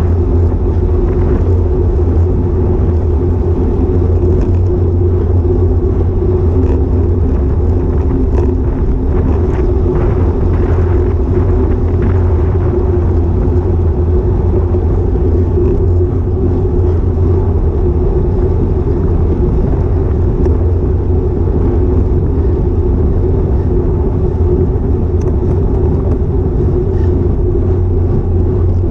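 Steady low rumble of wind and road noise picked up by an action camera mounted on a road bike while riding, without breaks.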